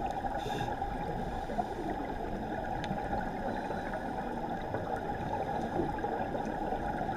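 Steady, muffled underwater rushing picked up by a camera on a scuba dive, with the bubbling of divers' exhaled regulator air. No distinct knocks or calls stand out.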